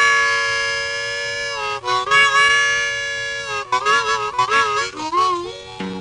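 Harmonica opening of an old-time country song: held chords, then a run of wavering, bending notes. A fiddle comes in near the end.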